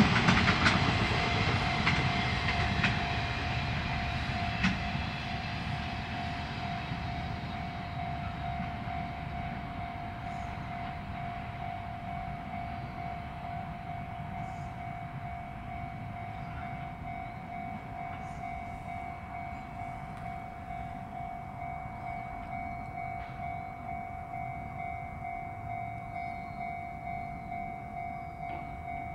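A freight train hauled by an electric locomotive rolls past and fades away over the first several seconds. Throughout, a level-crossing warning bell keeps ringing steadily.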